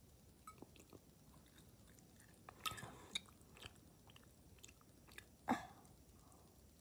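Quiet close-up chewing and biting of food taken from a fork, with small wet mouth clicks. A single sharper click about five and a half seconds in is the loudest sound.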